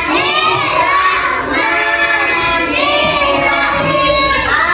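A group of children singing together in unison, in long, sustained, gliding notes.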